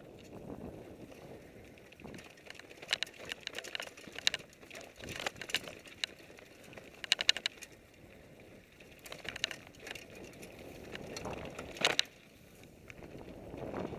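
Fuji Thrill LTX mountain bike running down a dirt singletrack: tyres rolling on dirt under repeated clicking and rattling as the bike goes over rough ground, with a sharp clatter about twelve seconds in, the loudest moment.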